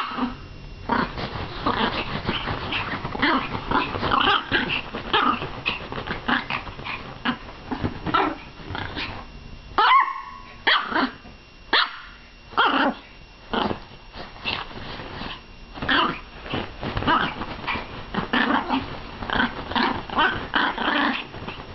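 A Yorkshire terrier growling and barking excitedly in quick irregular bursts, with a higher-pitched yip about halfway through.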